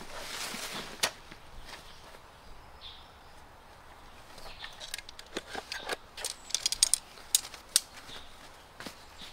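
Camping gear being unpacked by hand: a fabric stuff sack rustles, then a run of light metallic clicks and clinks as a black slatted metal folding tabletop is drawn out of it and handled, densest about two-thirds of the way through.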